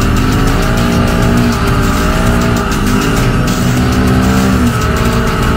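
Polaris RZR XP Turbo side-by-side's turbocharged engine running hard on sand, its pitch rising and falling several times as the throttle is worked, with a music track laid over it.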